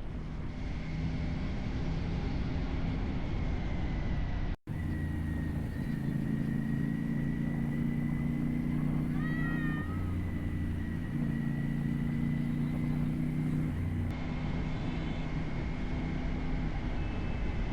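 Motorcycle engine running under way, a steady low drone whose pitch holds and shifts in a few steps, over wind and road noise, with a thin steady whine on top. A short wavering chirp comes about halfway through, and the sound drops out for an instant a little before that.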